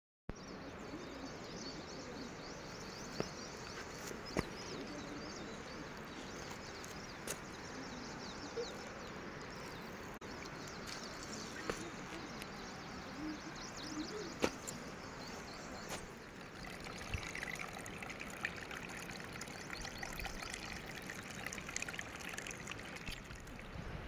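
Shallow forest stream trickling over stones and pebbles, a steady water sound with a few sharp clicks.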